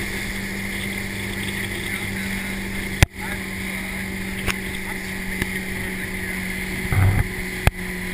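Motorboat engine running steadily at towing speed over the rushing, splashing wake. There is a sharp click about three seconds in, another near the end, and a few low bumps just before it.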